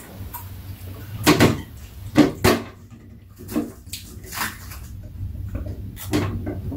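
A knife slicing a crisp Korean pear over steel platters, giving a run of short crunches and clinks, mixed with eating sounds.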